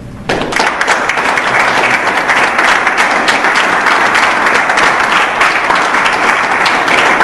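Audience applauding: dense, steady clapping that starts abruptly a moment in.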